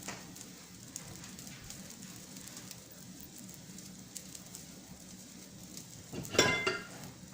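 Chicken soup bubbling at a boil in a pot, a faint steady crackle and patter. About six and a half seconds in there is a brief loud clink with a short ring, like metal knocking on the pot.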